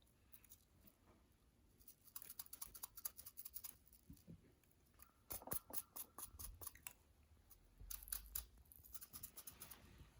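Slime being worked, giving quiet runs of quick sticky clicks and crackles, three bursts of them.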